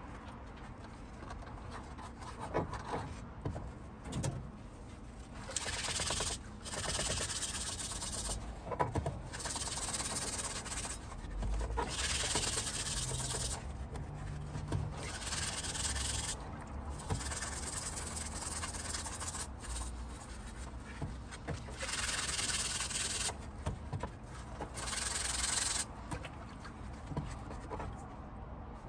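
Stainless steel scrubber pad rubbing across the wet steel of a splitting maul head part, scrubbing off the rust and residue loosened by electrolysis. It comes in repeated bouts of a second or two, with short pauses between them, growing stronger after the first few seconds.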